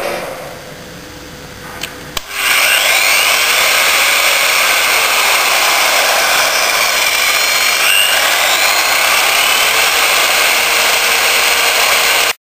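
Metabo SE 12-115 burnishing machine, a 1200 W electric satin finisher driving a wide abrasive wheel, switched on about two seconds in after a couple of clicks. It then runs steadily and loudly, with a faint whine that drifts up and down in pitch.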